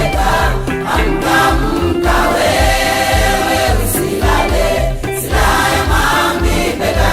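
A gospel song with a choir singing over a steady bass beat.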